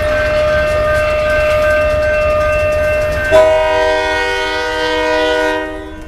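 A steady siren tone of a warning-siren test sounds throughout over a low diesel rumble; a little over three seconds in, a diesel locomotive's multi-chime air horn sounds one long blast over it and cuts off just before the end.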